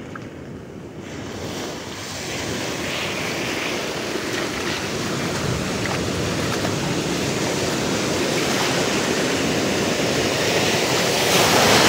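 Ocean surf breaking and washing in foam around a wader's legs. It grows steadily louder and is loudest near the end as a wave breaks close by.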